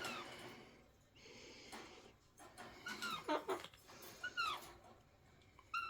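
Alexandrine parakeet making soft raspy chatter, then short calls that slide down in pitch, about three seconds in, again around four and a half seconds, and once more at the end.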